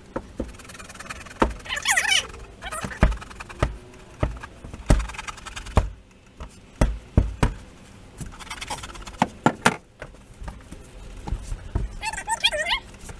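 Scattered, irregular knocks and thumps, with a dog whining briefly near the end.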